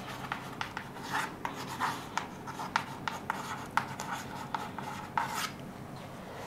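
Chalk writing on a chalkboard: a quick run of short taps and scratches as the letters are stroked out, stopping about five and a half seconds in.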